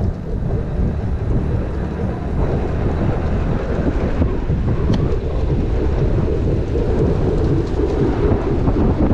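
Steady, loud wind rumble buffeting a body-worn action camera's microphone on a moving electric motorbike.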